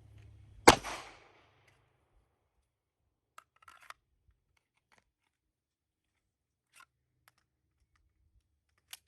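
A single handgun shot under a second in, with a short ringing tail, followed by a few faint scattered clicks.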